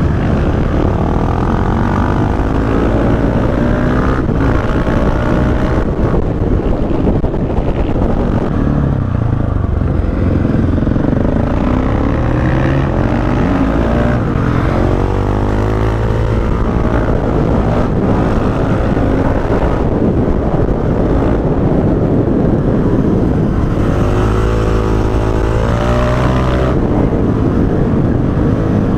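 KTM 690 SMC-R supermoto's single-cylinder engine running loud through an Akrapovic exhaust with the dB killer removed. It revs and accelerates, rising and falling in pitch, with clear climbs about halfway through and again near the end.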